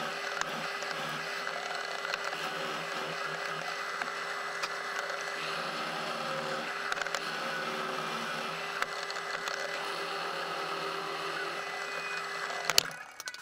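Bench drill press running steadily as its bit bores a hole into a pine pallet block. Near the end the motor sound drops away, with a sharp click.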